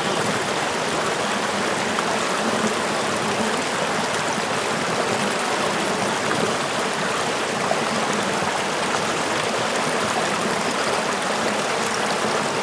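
Shallow river running over and between boulders: a steady rush of water.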